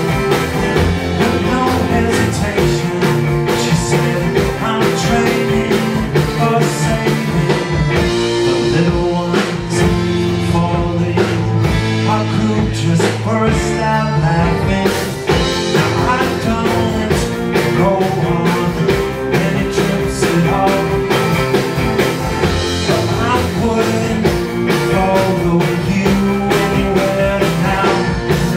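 A live indie-rock band playing a song with electric guitar, electric bass, cello and accordion over steady drums.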